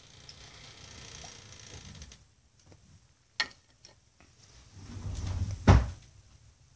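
Small plastic toy figures and a wooden toy cart handled on a carpet: soft rubbing, a sharp click about three and a half seconds in, and a louder thump near the end.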